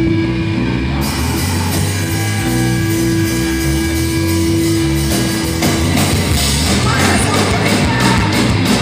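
Live rock band playing loud through the PA: a steady held note over a pulsing bass and drum low end, with the full band coming in denser and harder about six seconds in.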